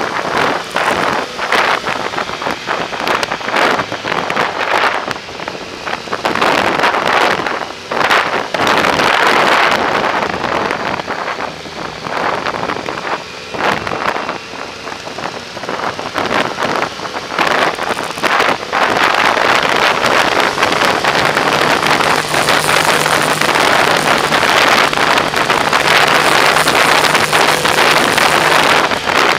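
Wind buffeting the microphone on a moving Yamaha motorcycle, gusting unevenly, with the bike's engine running underneath. A steady low engine note comes through from about two-thirds of the way in.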